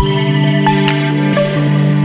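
Background music: electronic track with steady held synth chords and a regular beat.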